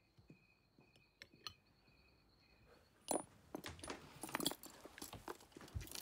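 Faint, high, short chirps repeating a few times a second over quiet room tone. From about halfway there are soft rustling and clicking handling noises, as of fabric and small objects being moved.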